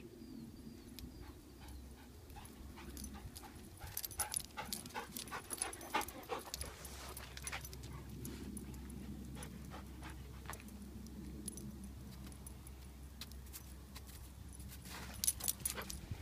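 A dog's collar tags jingling and its claws clicking on pavement as it walks, heard as flurries of small light clicks: a busy run of them about four to six seconds in, and more near the end.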